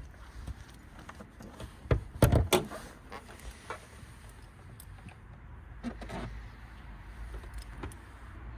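Sharp metallic clunks and clicks, loudest about two seconds in, with a smaller clunk about six seconds in: a minivan's hood latch being released and the hood lifted open.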